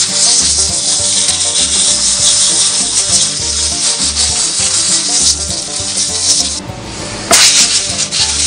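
Compressed-air blow gun hissing as it blows sawdust out of a chainsaw's clutch cover and housing. The air stops briefly near the end, then comes back with a louder burst.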